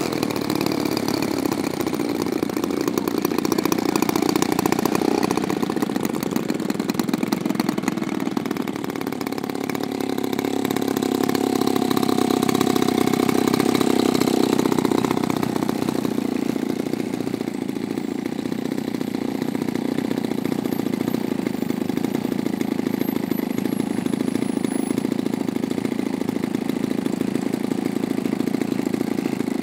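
A small engine running steadily, swelling a little in level about midway and then easing back.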